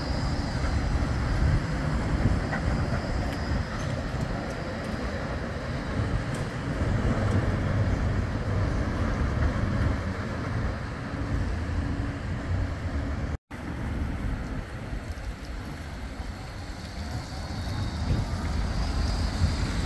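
Bombardier Flexity 2 trams running: the steady low rumble of a tram passing along with road traffic, then, after a brief break about two-thirds through, another Flexity 2 tram running into the stop. A faint high whine sounds near the start and again near the end.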